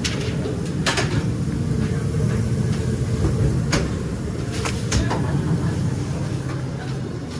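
Busy fast-food kitchen ambience: a steady low rumble of equipment, with a few sharp clicks and taps from handling at the sandwich counter.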